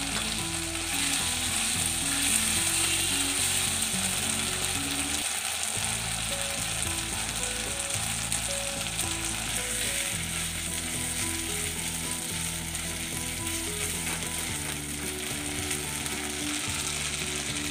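Chopped tomato and spice paste frying in hot oil in a pan, a steady sizzle, stirred now and then with a spatula.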